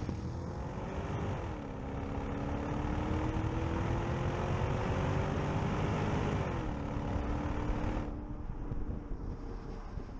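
Porsche Cayenne S's 4.5-litre V8, heard at the exhaust tailpipe while accelerating: muted, with the revs rising, dropping at an automatic upshift about a second and a half in, climbing again and dropping at a second upshift around seven seconds in, then holding and easing off near the end. Tyre and wind noise runs underneath.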